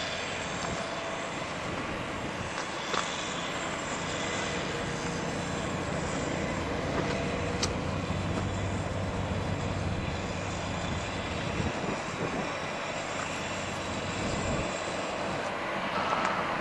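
Airbus A320-214 airliner's twin CFM56 turbofan engines running at low taxi power as the jet taxis past, a steady engine noise with a low hum that grows stronger partway through.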